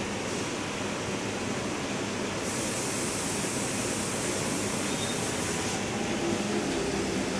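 Steady rushing hiss of water moving through aquarium filtration, turning brighter and hissier for a few seconds in the middle.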